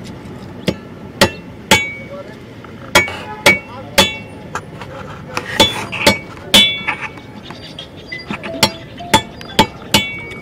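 A wooden mallet knocking a large katla fish down onto a fixed curved boti blade, sharp knocks mostly in groups of three about half a second apart. Each knock carries a brief metallic ring from the blade.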